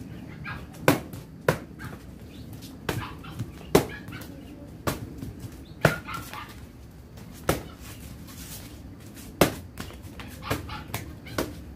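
Taekwondo kicks landing on handheld kick paddles: about ten sharp smacks at uneven intervals, roughly one a second.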